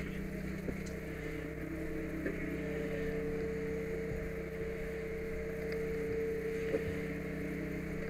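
An engine running steadily at a fire scene, a constant drone with a held whine over it, with a few faint knocks.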